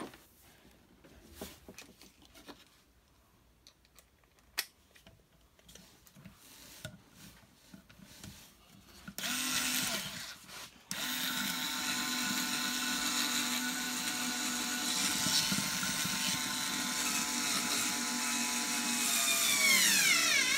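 A cheap 4.8-volt Harbor Freight electric screwdriver drives a 1/4-inch screw into a block of wood, its small motor and gearbox whirring. It runs briefly about nine seconds in, stops, then starts again and whines steadily, slowing and dropping in pitch near the end. Before that there are only faint handling clicks.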